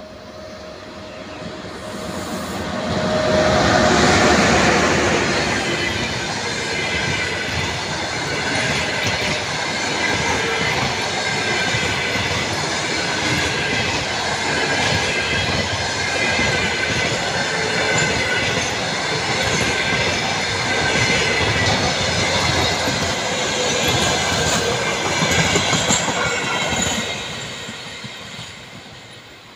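EP1P electric locomotive and its train of passenger coaches passing at speed. The noise rises to its loudest about four seconds in as the locomotive goes by. A long run of coaches follows, with wheels clattering over the rail joints and thin high squealing tones, fading away near the end.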